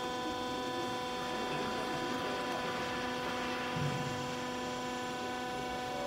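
Steady electric hum with several fixed, evenly spaced tones, from the electric motor and hydraulic pump of a vertical clothes baler running while the press ram is at rest.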